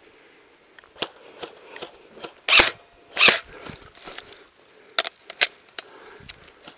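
Airsoft gun firing single shots: a handful of sharp pops at uneven spacing, the two loudest close together near the middle.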